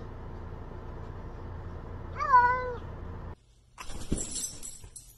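A cat meows once, a rising-then-falling call, over the steady hum of a car's cabin, about two seconds in. After a sudden cut, a second or so of scratchy, rustling noise follows near the end.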